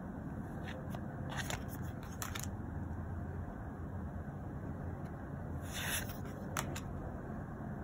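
Tarot cards being slid off the front of a deck and tucked behind it by hand: a few short papery scrapes and flicks, the longest just before six seconds in, over a steady low background hum.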